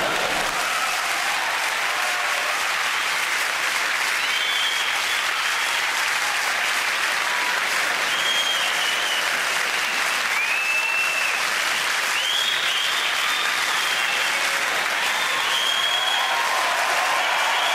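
Theatre audience applauding steadily, with a few short high whistles over the clapping.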